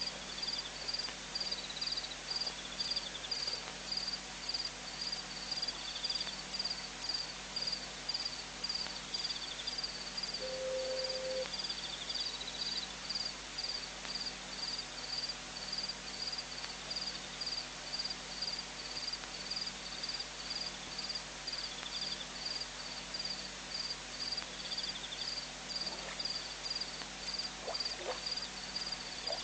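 Insects chirping in a steady high rhythm, about two to three chirps a second, with another insect's short trills every few seconds. A brief low call sounds once about ten seconds in.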